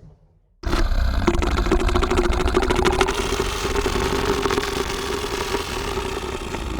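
Tyrannosaurus rex breathing sound effect: one long, rattling breath at a steady low pitch. It starts suddenly after a brief silence and slowly fades.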